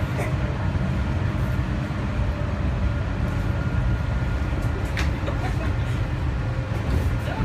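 Walt Disney World monorail car running, heard from inside the cabin: a steady low rumble with a faint steady whine over it, and a brief click about five seconds in.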